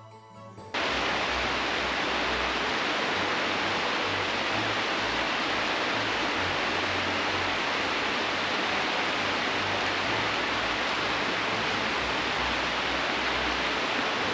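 Steady rushing of river water that cuts in about a second in and holds even throughout.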